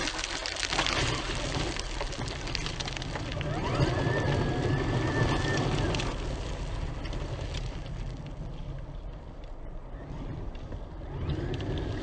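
Traxxas X-Maxx RC monster truck driving over gravel, its brushless electric motor and drivetrain whining up in pitch with throttle about four seconds in, over the crunch and rattle of tyres on stones. Fainter in the second half.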